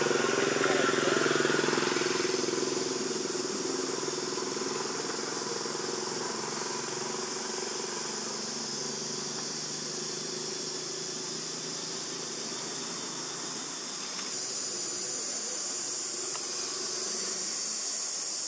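Outdoor background of a distant motor engine running, loudest at the start and fading away about two-thirds of the way through, under a steady high drone of insects that grows louder after the engine has gone.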